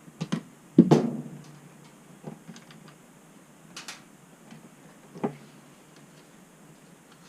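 A few separate knocks and clunks, two quick ones and then the loudest about a second in, with fainter ones after, over a low steady hiss.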